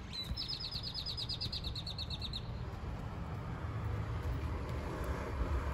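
A small bird's fast trill, about eight quick notes a second, lasting about two seconds, over a steady low background rumble.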